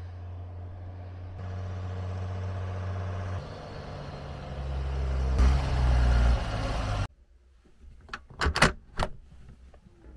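Magirus Deutz truck's air-cooled diesel engine running as the truck drives, the sound shifting abruptly twice and cutting off about seven seconds in. A few sharp knocks follow near the end.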